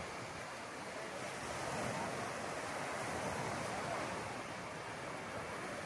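Sea surf washing in a steady rush, swelling gently a couple of times.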